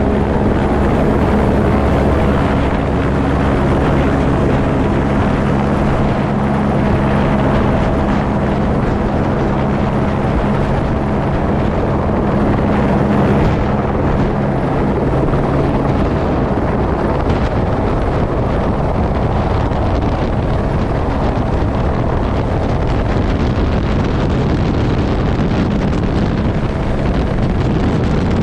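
Airbus H125 helicopter's turbine and main rotor running at takeoff power as it lifts off and gathers speed, picked up by a camera on the skid. A steady engine hum dominates at first, then about halfway through it gives way to rushing wind noise on the microphone as airspeed builds.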